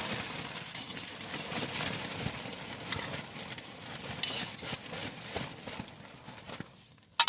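Irregular knocks, clicks and scrapes of cooking utensils handled against a small camping pan and gear, with one sharp, loud click near the end.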